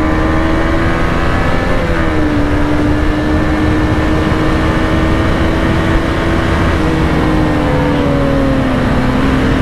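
KTM Duke 250's single-cylinder engine pulling steadily at road speed, with wind rush over the microphone. The engine note drops a step about two seconds in, holds level, then falls gradually near the end.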